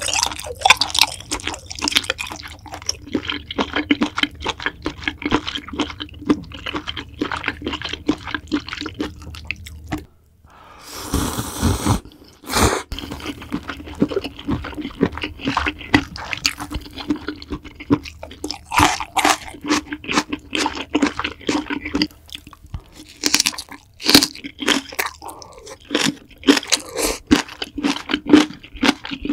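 Close-miked eating of seafood ramyeon: wet chewing, smacking and crunching, with a long slurp about eleven seconds in.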